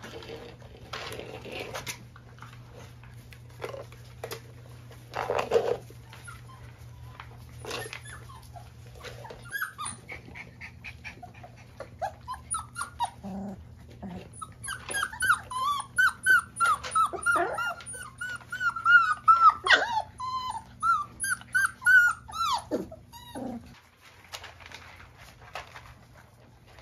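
Month-old Golden Retriever puppies whimpering and whining: a quick run of short, high-pitched cries that starts about halfway through and stops shortly before the end. Before that there are scattered clicks and knocks of puppies eating kibble from a plastic bowl.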